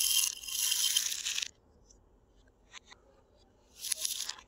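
Small buttons and pearl beads clattering in and against a plastic bowl and a glass bowl. One long clatter lasts about a second and a half, followed by a couple of light clicks and a shorter clatter near the end.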